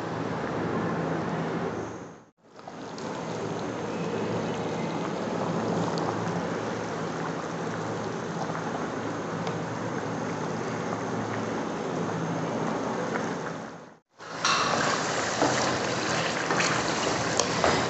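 Beef curry boiling hard in a large aluminium pot over high heat as it is stirred and reduced, a steady bubbling hiss that breaks off twice. After the second break, about 14 seconds in, the thickened masala fries in its ghee with a louder, crackling sizzle: the bhuno stage, cooking down until the ghee separates from the masala.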